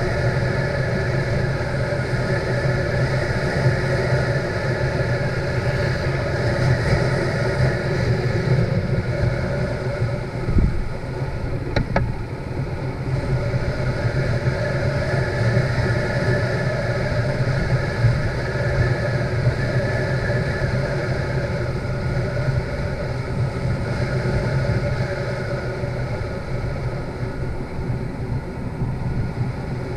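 Motorcycle engine running steadily at cruising speed, with road and wind noise. A brief knock about ten and a half seconds in.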